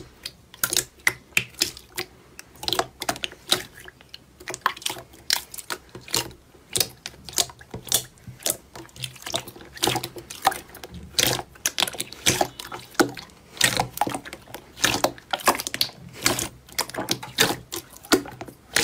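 Thick slime being squeezed, pressed and folded by hand, giving a dense run of irregular sharp clicks and pops, several a second, as air trapped in the slime is pushed out.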